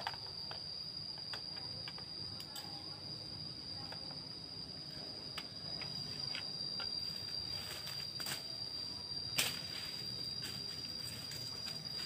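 A forest insect's steady high-pitched trill, with scattered snaps and rustles of footsteps and handling in dry leaf litter; the sharpest snap comes a little past nine seconds in.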